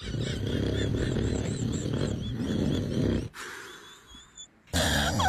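A man snoring loudly: one long, rough, rattling snore of about three seconds, then another loud snore starting near the end.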